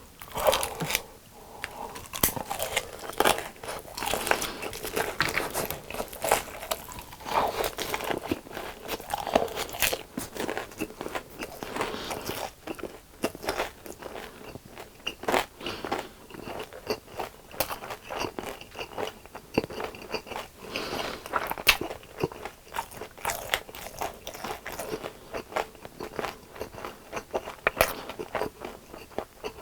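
Biting and chewing crispy fried chicken: a rapid, irregular run of crunches and crackles.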